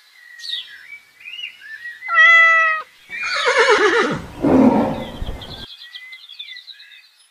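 Animal calls: a short, held pitched call about two seconds in, then a longer, harsher call that falls in pitch.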